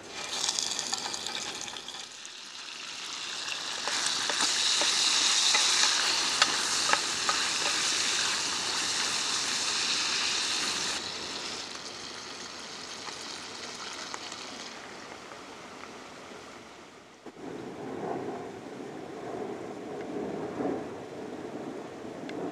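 Bacon strips dropped into a hot stainless steel mess tin on a gas stove, sizzling as they fry; the sizzle builds to its loudest a few seconds in and fades away. Near the end, a knife slicing a St George's mushroom on a wooden chopping board.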